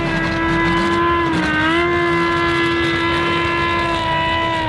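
A BMW M5's V10 and the monster truck's engine at full throttle in a tug-of-war, one high, steady engine note dominating. The note dips briefly about a second and a half in and falls away at the very end.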